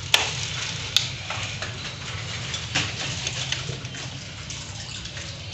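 Hands handling and fitting a fan motor into an LG Dual Inverter split-type indoor unit: rustling and small knocks, with two sharp clicks in the first second over a low steady hum.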